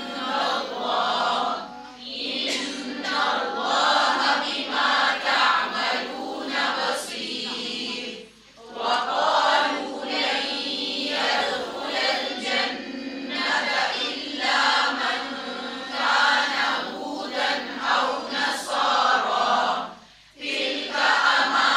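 A group of voices reciting Quranic verses in Arabic together in a chanted unison. It pauses briefly for breath about 2, 8 and 20 seconds in.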